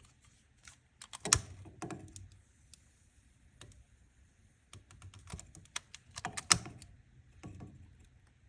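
Wood fire crackling and popping in a fireplace: irregular sharp snaps in two bursts, one about a second in and one from about five to seven and a half seconds in, the loudest pops near one and a half and six and a half seconds in.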